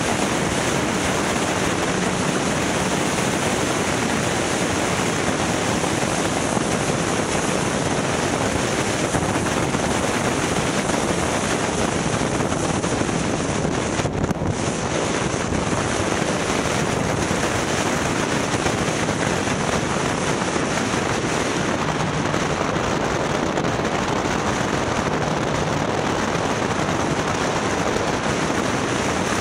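Riding noise from a BMW S1000XR motorcycle on the move: a steady rush of wind on the bike-mounted microphone, with the engine's low hum faintly under it. The rush thins briefly about halfway through.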